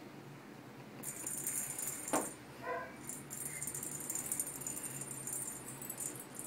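Plastic lattice cat-toy balls with bells inside jingling and rattling as kittens bat them across a tile floor, starting about a second in, with a sharp knock of a ball on the tile a little after two seconds.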